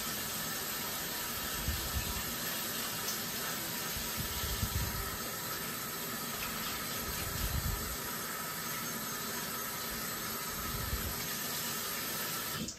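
Bathroom tap running steadily into a wash basin, with hands being washed and rinsed under the stream.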